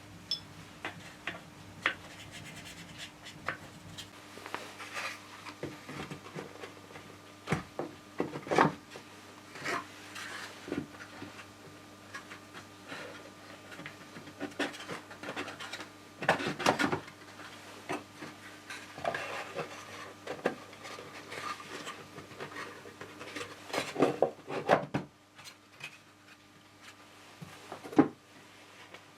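Hand work with small hard objects: irregular rubbing and scraping, broken by scattered light knocks and clicks and a few louder knocks, over a faint steady hum.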